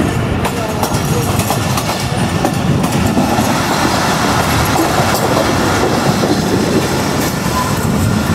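Pak Business Express passenger train running at speed, heard from inside a moving coach: a steady rolling rumble with the wheels clicking over rail joints every so often.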